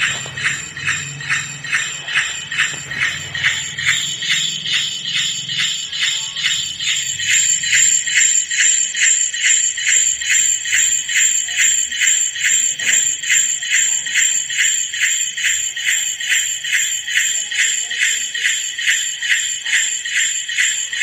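Jingle bells shaken in a steady, even rhythm, a little over two shakes a second.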